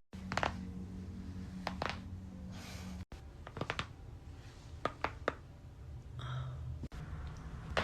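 Neck joints cracking during chiropractic adjustments: a series of short sharp pops, some coming in quick pairs.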